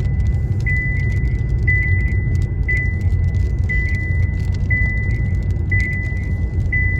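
High electronic alert tone pulsing about once a second, a warning alarm sounding right after a "Tornado warning" announcement, over the steady road rumble inside a moving vehicle.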